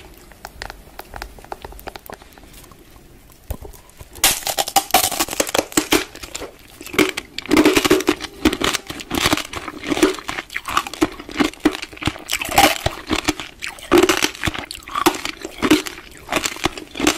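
Close-up crunching and crackling, faint for the first four seconds and then dense and loud from about four seconds in, in quick irregular pulses.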